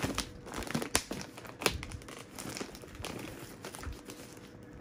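Clear plastic packaging bag crinkling in irregular crackles as hands handle the fan wrapped inside it.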